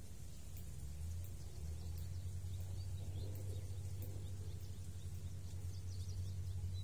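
Outdoor ambience: a steady low rumble with faint bird chirps over it.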